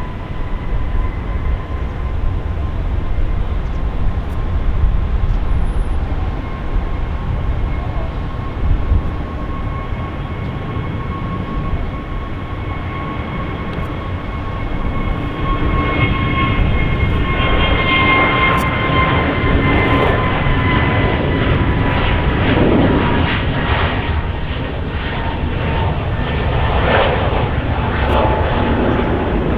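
Jet airliner engines: a steady whine that slowly drops in pitch over a low rumble. About halfway through, a coarser, louder rushing noise builds in and carries on.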